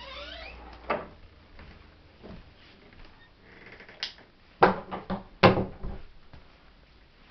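Several sharp knocks and bumps, like a door or cupboard being knocked. A single one comes about a second in, and two louder clusters of knocks come around halfway through.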